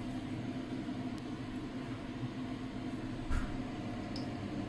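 Gas stove burner running steadily under a stainless steel wok, a low even rush. A single soft knock comes about three seconds in.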